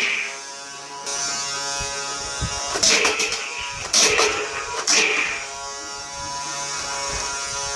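Motorized toy foam-dart blaster: its motor starts up about a second in and runs with a steady buzz, and three darts are fired about a second apart.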